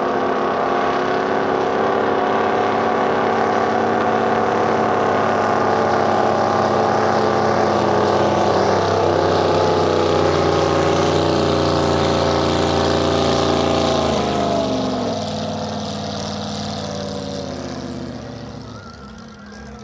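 Racing jet boat's engine running loud and steady at full speed. About fourteen seconds in its pitch drops, and the sound fades away as the boat moves off.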